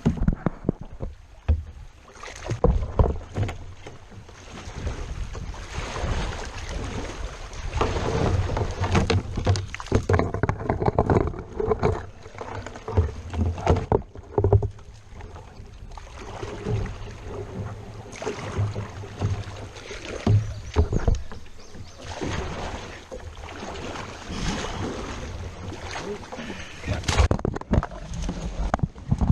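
Kayak paddling on a river: the paddle splashing and dipping, with irregular knocks and bumps against the hull of a Pelican Challenger 100 angling kayak, over moving water.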